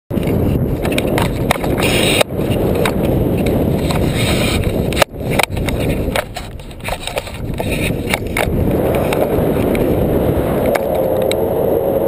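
Wind rushing over a camera microphone as a paraglider flies. A loud, rumbling buffeting, with a few sharp knocks from the handheld camera pole about two and five seconds in.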